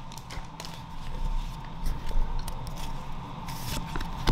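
Light rustling and soft clicks of Pokémon cards and a foil booster-pack wrapper being handled, over a faint steady hum.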